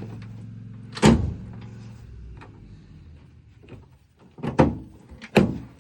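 Tailgate being tried out on its newly fitted metal latch: one loud clunk about a second in, then two more clunks near the end.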